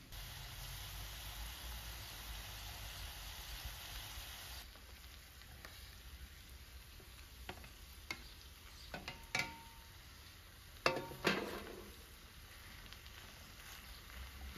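Minced meat sauce frying and sizzling in a metal pan over a wood fire as it is stirred with a wooden spoon; the sizzle is louder for the first few seconds, then quieter. Light clinks and knocks of the spoon and metal tray come in the second half, the loudest a pair of knocks about eleven seconds in.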